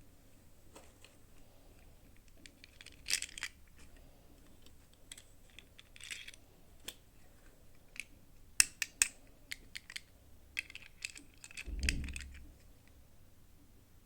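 Hard plastic toy packaging and pieces being handled and opened: scattered sharp clicks, taps and small clatters, with a duller rustling thump near the end.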